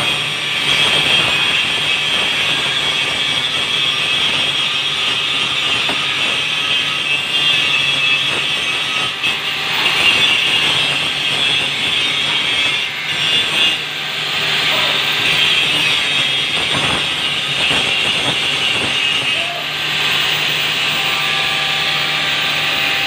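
Electric angle grinder grinding steel: a steady, loud, high grinding hiss over the motor's hum, easing briefly a few times as the disc comes off the metal.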